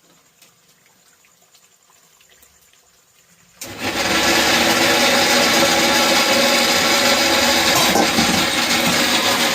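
An electric mixer grinder switches on about three and a half seconds in, spins up over half a second and runs steadily and loudly, grinding spices for the chicken curry. Before it starts there are only faint small clicks.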